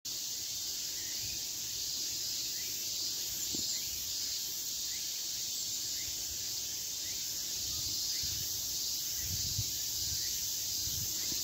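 Steady high-pitched chorus of insects in late-summer woodland undergrowth, with some low rumbling about nine to ten seconds in.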